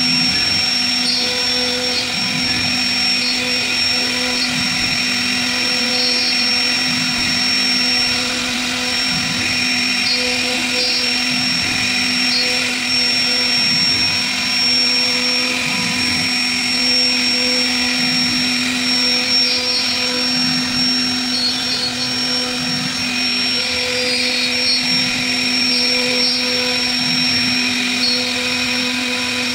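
CNC router spindle running at speed while its small straight bit cuts engraved grooves into a wooden door panel: a steady high whine over a steady hum and the noise of the cut.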